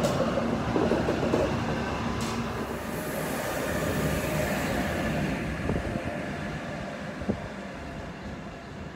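A V100 diesel locomotive's engine runs as the locomotive pulls away light. About two seconds in the sound changes to the steady rushing of a train on the rails as a Bombardier Traxx locomotive rolls in light, with a single sharp knock near the end.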